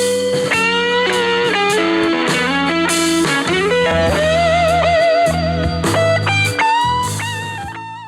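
Music with a lead electric guitar playing bent notes with vibrato over a steady bass line, heard through a Tribit portable Bluetooth speaker; it fades out near the end.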